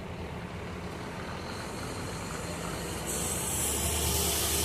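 Intercity coach bus moving up close, its diesel engine hum growing louder, with a hiss that rises and turns strong about three seconds in.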